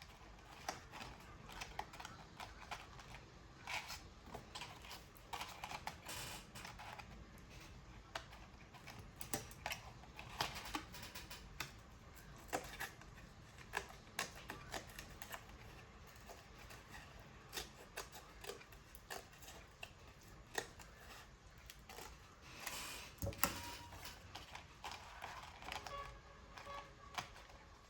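Irregular light clicks and taps of paper and small craft tools being handled while building a paper model, with a longer rustle near the end.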